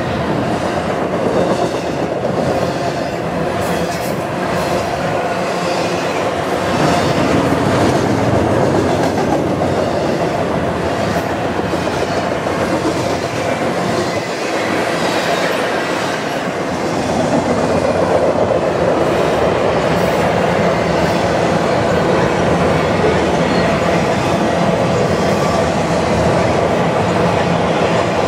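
A freight train's cars rolling past on the main line, a steady rumble with the wheels clattering on the rails.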